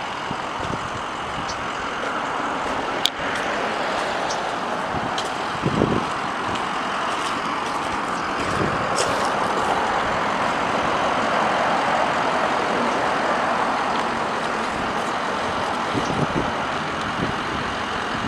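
Steady motor-vehicle and road traffic noise, with a single sharp click about three seconds in.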